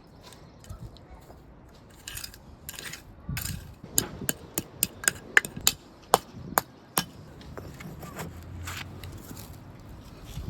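Brick pavers being handled and set, knocking and clinking against each other: scattered scrapes, then a quick run of about a dozen sharp clicks in the middle.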